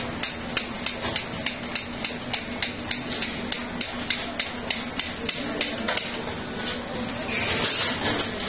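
Quick, regular metallic clicks, about two to three a second, from a handheld batter dispenser's valve snapping as it portions batter into the round cast-iron molds of an imagawayaki griddle. A louder short hiss comes near the end.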